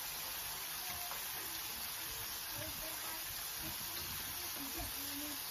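Hot oil sizzling steadily around a whole chicken as it shallow-fries in a frying pan, the skin browning and crisping.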